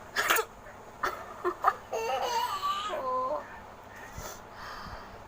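A woman's voice: a sharp breathy burst near the start, a few short puffs of breath, then about a second and a half of laughter.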